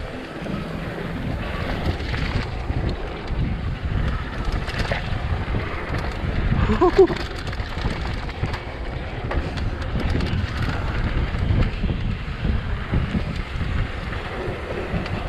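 Wind buffeting the microphone over the rumble and rattle of a mountain bike descending a dirt trail. A brief pitched sound about seven seconds in.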